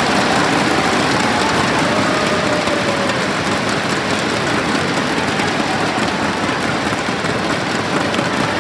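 Indoor arena crowd: a steady din of many spectators talking and cheering, with a voice calling out about three seconds in.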